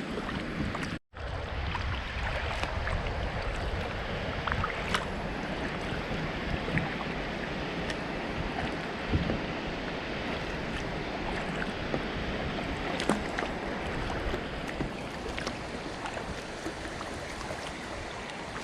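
Delaware River water running steadily around a kayak, with small scattered splashes and drips and some wind on the microphone. The sound cuts out for an instant about a second in.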